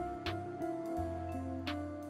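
Instrumental background music with low bass notes and a regular beat.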